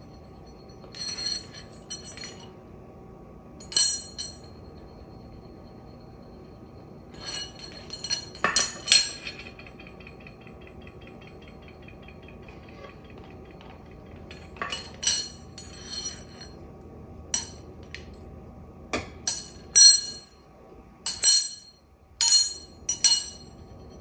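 A metal spoon clinking and clattering on a ceramic tile floor as an African grey parrot picks it up and knocks it down with its beak. The strikes are irregular, each with a short metallic ring, and come in clusters that grow denser and louder near the end.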